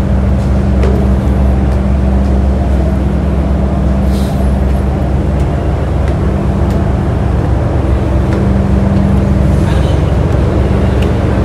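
Steady low drone of a large passenger ferry's engines: a constant hum over a deep rumble.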